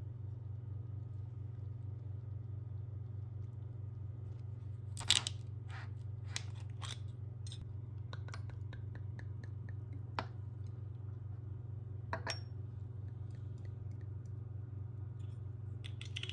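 Screw cap of a glass Jinro soju bottle being twisted open: a quick cluster of sharp clicks about five seconds in as the cap's seal cracks, then a few lighter clicks and taps. A steady low hum sits underneath.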